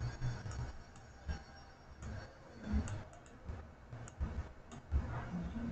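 Computer mouse clicking, a scattering of short irregular clicks with a few soft low thuds.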